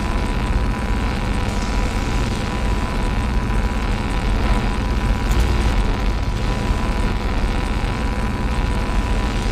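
Lightsaber sound effect: the blade's steady low electric hum, held without clashes, with a faint high tone running through it.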